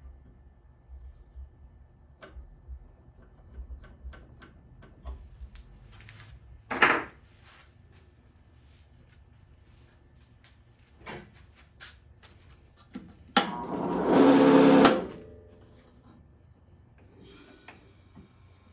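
Workshop handling sounds around a wooden drawknife handle blank held in a small machine: scattered light taps and clicks, a sharp knock about seven seconds in, and a louder burst of about a second and a half with a steady pitched hum around thirteen seconds in.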